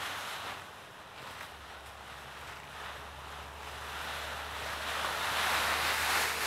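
Dry autumn leaves rustling as a dog burrows and thrashes through a leaf pile, quieter about a second in and building louder toward the end as it charges out.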